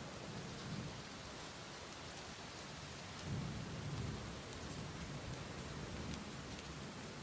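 Steady rain falling, with individual drops ticking sharply over the hiss. A low thunder rumble swells about three seconds in and fades a second later.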